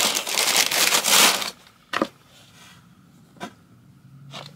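Tissue wrapping paper rustling and crinkling as it is pulled out of a cardboard shoebox, for about a second and a half, followed by a sharp click and a fainter tap of the box being handled.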